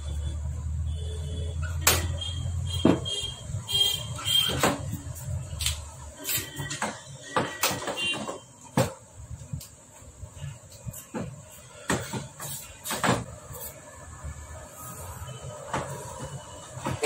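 Hero Splendor Plus single-cylinder engine running with a low steady hum that dies away within the first three seconds. It is followed by irregular metallic clicks and clunks as the engine is handled.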